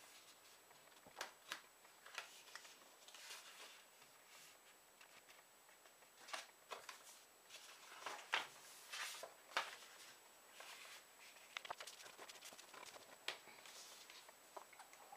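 A sheet of paper being folded and creased by hand: faint, irregular rustles and swipes of fingers pressing and sliding along the paper, busiest in the middle.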